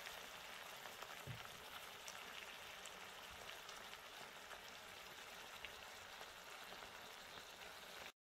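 Faint, steady sizzling and crackling from a pan of sea bream and vegetables cooking in liquid, cutting off suddenly near the end.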